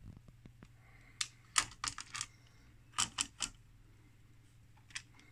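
Sharp clicks and light rattles of hard plastic trim parts being handled and fitted on an oscilloscope's case. There is a quick run of about five clicks a little over a second in, three more about three seconds in, and a single click near the end.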